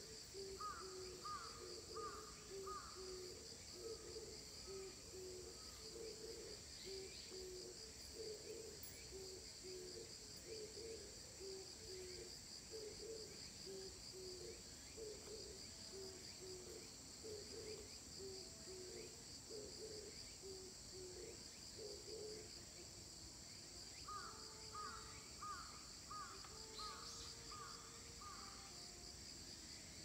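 Faint steady insect chorus: a high pulsing trill with a higher steady hiss above it. Under it, an animal gives a low call about twice a second, which stops about three quarters of the way through. Short runs of higher repeated call notes come near the start and again near the end.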